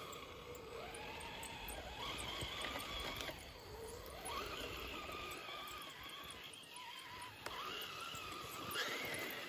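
Electric drive motor and gearbox of an Axial SCX10 RC rock crawler whining as it drives, the pitch rising and falling several times with the throttle.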